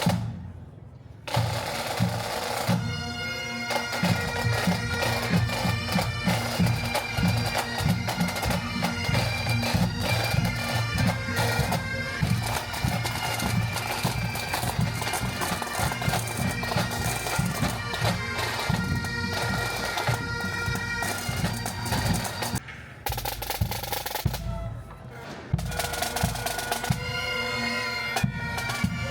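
Marching pipe band playing: bagpipes' steady drones and melody over snare and bass drum beats, with a couple of brief breaks.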